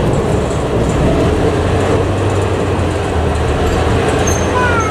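DSA-class diesel shunting locomotive approaching slowly, its engine running in a steady low drone with the rumble of its wheels on the rails. Near the end a brief high-pitched squeal sounds.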